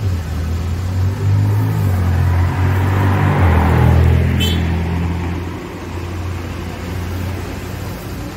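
McLaren GT's twin-turbo V8 driving past close by at low speed, its engine sound swelling and then fading, over the steady low hum of an idling bus.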